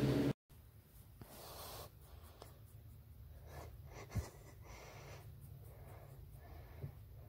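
A steady hum cuts off abruptly just after the start. Then come faint scratchy rustling and handling noises on a plush pet bed, with a few small clicks and one short soft knock about four seconds in.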